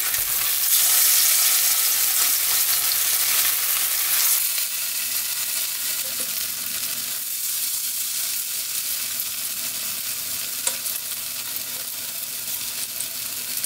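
Grated-pumpkin pancakes shallow-frying in plenty of oil in a nonstick pan, a steady crackling sizzle. It is loudest for the first few seconds, just after the pancakes are turned over, then settles lower.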